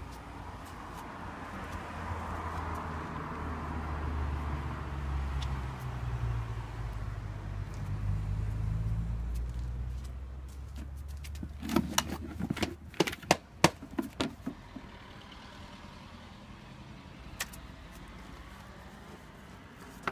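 A low rumble swells and then fades over about ten seconds. It is followed by a flurry of sharp clicks and knocks lasting about three seconds as a husky handles its chew toys on the paving.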